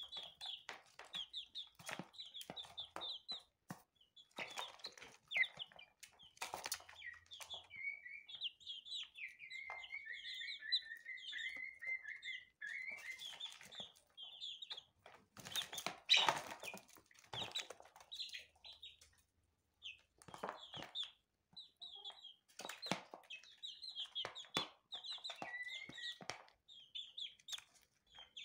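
Young chicks peeping continually in short high chirps while they peck at feed in a shallow dish, with a scatter of sharp pecking and scrabbling clicks. A run of lower peeps comes about a third of the way in, and a louder burst of knocks and rustling about halfway through.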